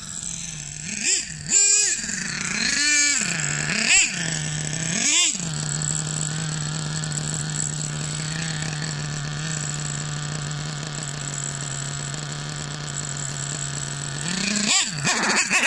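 Hobao Hyper 30 Turbo nitro glow engine in an RC monster truck: the throttle is blipped into about five short revs, then it idles steadily, then it revs again near the end. The owner says the engine is running rough and bogging and still needs tuning.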